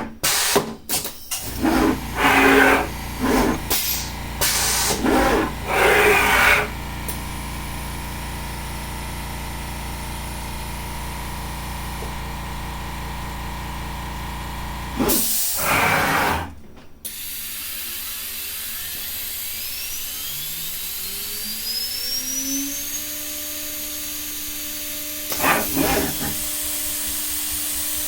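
Small CNC router's ATC spindle at work: a run of loud short bursts in the first seven seconds, then a steady hum. Near the middle comes a loud burst and a sudden drop as the spindle stops. It then spins back up with a whine that rises in pitch for about five seconds and settles into a steady tone, with another short burst near the end.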